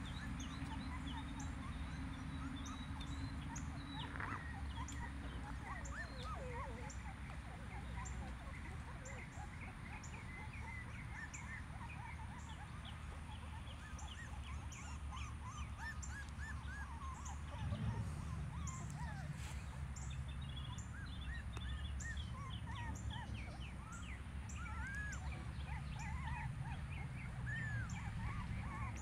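Small birds chirping in many short, scattered calls over a steady low rumble.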